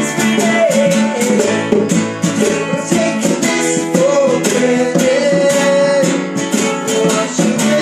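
Two acoustic guitars strummed in a steady rhythm while a man sings.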